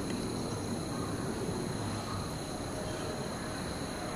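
Steady low rumble of a Boeing 737's jet engines on final approach, heard from far off, under a steady high insect chirr.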